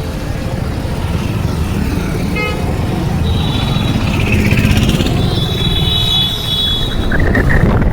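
Vehicle horns honking in city traffic over a steady low rumble of road and wind noise. There is a short toot about two seconds in, then longer high-pitched horn blasts around three and five seconds in.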